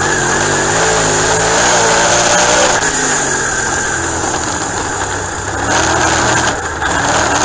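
Dirt-track race car's engine heard from inside the cockpit, revving up and easing off through the turns, its pitch wavering for the first few seconds and then holding steadier.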